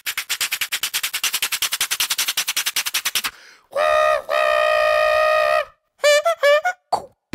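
Mouth-made sound effects from beatboxers: a rapid run of clicks for about three seconds, then a held pitched tone broken once by a brief gap, then a few short chirps that waver in pitch.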